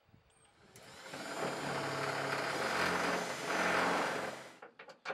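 Electric drill boring a hole through the pickup's bed floor. It starts just under a second in, runs steadily for about four seconds and stops near the end.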